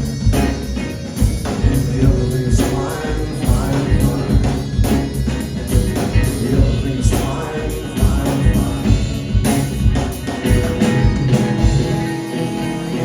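Live rock band playing with singing over a steady drum beat and bass; near the end the drums and bass drop out, leaving the guitar ringing on.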